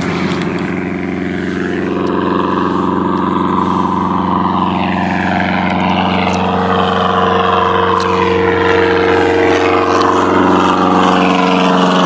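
Single-engine floatplane at takeoff power: its piston engine and propeller make a steady, even drone that grows gradually louder as the plane lifts off the water and climbs.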